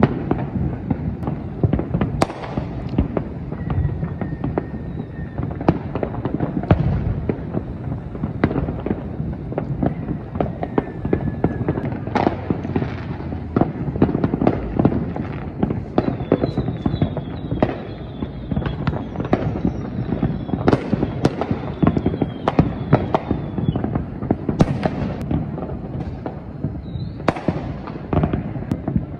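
Many fireworks going off over a city, a continuous run of bangs, pops and deeper booms. Several whistling fireworks give falling whistles about halfway through.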